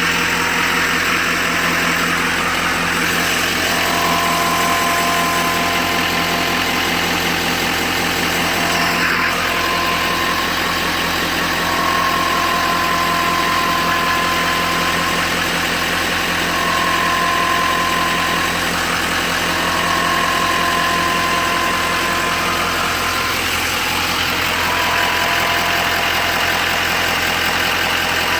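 Chevrolet Silverado 2500HD's 6.6-litre Duramax diesel V8 idling, with a high whine over the engine noise that wavers and drops in and out every few seconds. The owner takes the whine for the oil pump.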